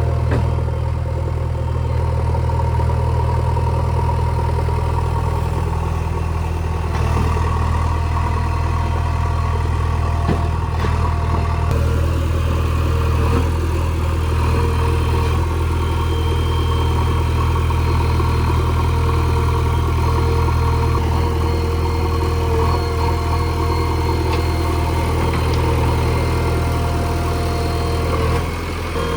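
Backhoe loader's diesel engine running steadily with a deep, even hum.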